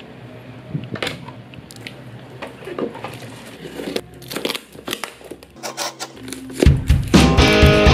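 Taped cardboard box being slit and torn open, with irregular rips, scrapes and the crinkle of packing tape and plastic wrap. Guitar background music comes in about two-thirds of the way through and is louder than the handling.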